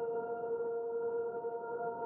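Background music: a held, ringing chord of several steady tones, with no beat.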